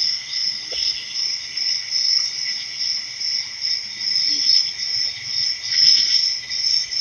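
Crickets chirping in a continuous high trill, swelling and fading slightly.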